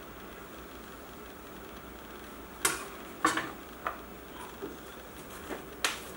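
A handful of sharp clinks and knocks as a kitchen knife is laid on a wooden cutting board and a small glass bowl is picked up and set down on the countertop. They begin a little before halfway, the two loudest close together, with a last loud clink near the end.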